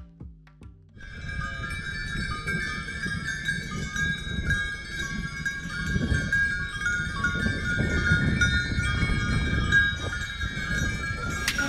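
Many livestock bells clanking and ringing at once, as on a grazing flock, over a low rushing noise.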